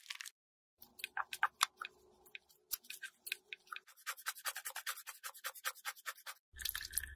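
Small nylon-bristle brush scrubbing a wet makeup compact and its highlighter pan: scattered scratchy strokes at first, then a quick, even run of about five strokes a second. A low rushing noise starts near the end.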